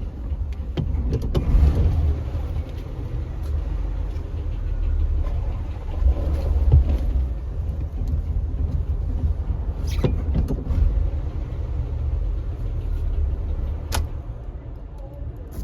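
Chevrolet Caprice Classic's engine running with a steady low rumble as the car is driven, with a few sharp clicks along the way.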